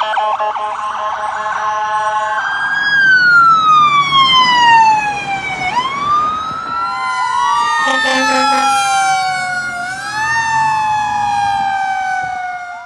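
Emergency vehicle sirens: a rapid warbling siren for the first couple of seconds, then slow wails falling and rising in pitch, two of them overlapping in the second half. A short horn blast sounds about eight seconds in, and everything cuts off suddenly at the end.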